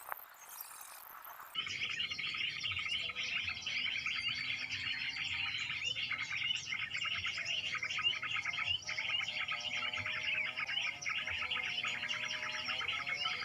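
A recording of mixed small-bird calls played as a bird-trapping lure ('suara campuran'): dense, continuous chirping and twittering that starts abruptly about a second and a half in.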